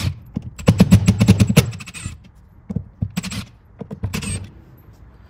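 Screwdriver backing out the Phillips screws that hold a plastic speaker cover in a car interior: a quick run of sharp clicks about a second in, then two shorter bursts of scraping and clicking.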